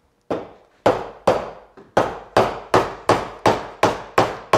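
Mallet striking the handle of a 3/4-inch bench chisel about eleven times in a steady rhythm, close to three blows a second. The chisel is being driven straight down along the knife line, chopping the baseline of the sockets for half-blind dovetail pins.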